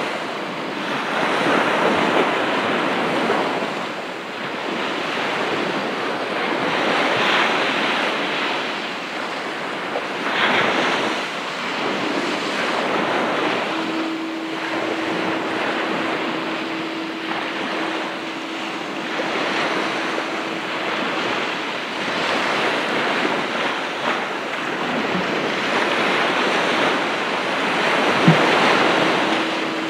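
Ocean surf breaking and washing onto a beach in surges every few seconds, with wind on the microphone. A steady low hum comes in about a third of the way through, drops out, and returns near the end.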